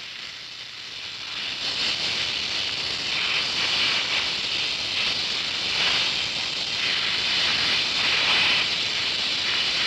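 Oxy-acetylene welding torch flame hissing steadily while filler rod is melted into a steel T-joint. The hiss swells over the first couple of seconds.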